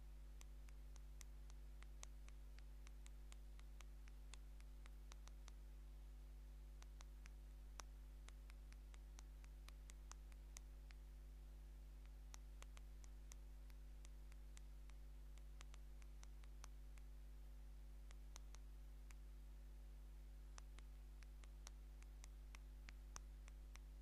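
Fingernails tapping on the touch screen of an older LG phone while texting: faint, irregular clicks, a few a second, over a steady low hum.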